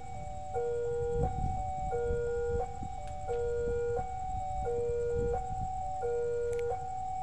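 Railway level crossing warning alarm playing a short three-note electronic tune over and over, about once every second and a half, with a low rumble underneath as a locomotive approaches.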